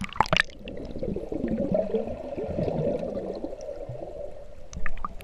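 A splash as the camera plunges into swimming-pool water, then muffled underwater sound with bubbling gurgles. Sharp splashy noises return near the end.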